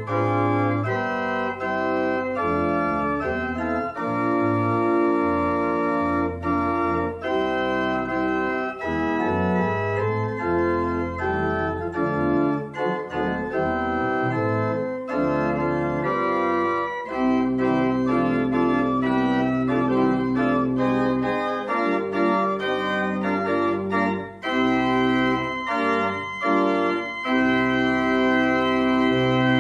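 Organ playing a slow piece of sustained chords over held bass notes, the chords changing every second or so.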